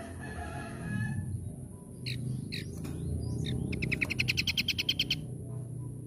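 Scaly-crowned babbler (asi topi sisik) calling: a few short sharp notes, then a rapid even trill of about a dozen notes a second lasting about a second and a half.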